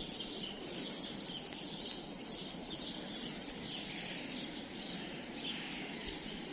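Steady background noise with the continuous high chirping of many small birds.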